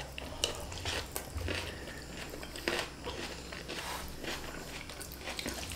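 Quiet mouth sounds of people chewing fried flat rice noodles (kuey teow goreng), with many short, irregular clicks.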